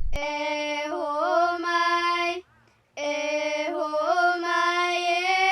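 A voice singing two long held notes with small wavering ornaments, a short pause between them. The second note cuts off abruptly.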